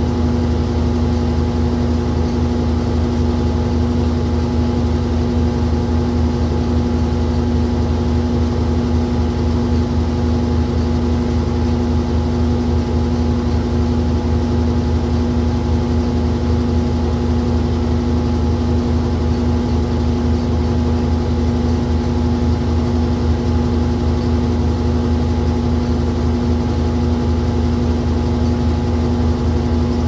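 Old top-loading washing machine running a duvet load: a steady, unchanging motor hum with a whirring noise over it.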